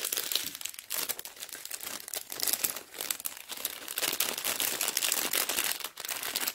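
Small plastic bags of diamond painting drills crinkling as they are handled: a dense, irregular crackle that eases briefly about two and six seconds in.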